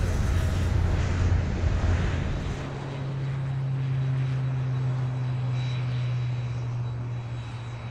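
A jet airliner's engines: a heavy low rumble that eases about two seconds in to a steady low hum.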